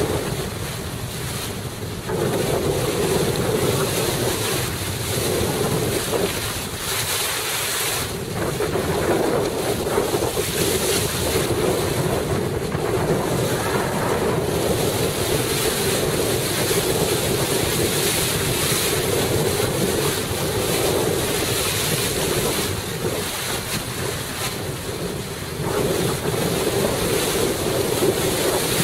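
Wind buffeting the microphone over the wash of waves and water around a small sailing boat, with a steady drone underneath.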